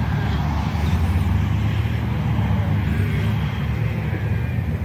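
Wind buffeting the microphone: a steady, heavy low rumble.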